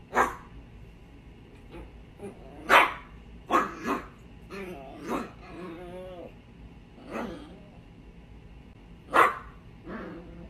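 Small black-and-tan terrier barking, about seven short, sharp barks spread out, with a wavering growl in the middle.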